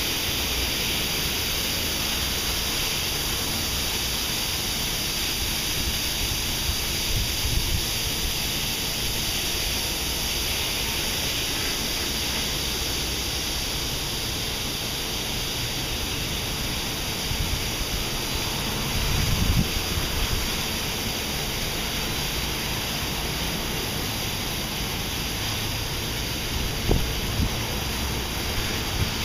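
Belanger Saber SL2 automatic car wash running, a steady rushing hiss filling the bay, with brief low rumbling surges about two-thirds of the way through and again near the end.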